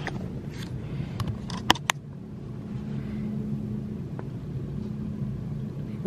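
A few sharp clicks and knocks from a phone being handled as it is turned around, the loudest a pair about two seconds in. After that, a steady low rumble with a faint hum.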